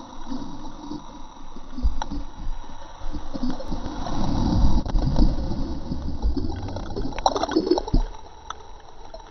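Muffled sloshing and gurgling of sea water, heard with the camera under the surface through the GoPro HD Hero's sealed housing, with a few soft knocks; it swells up in the middle and fades toward the end.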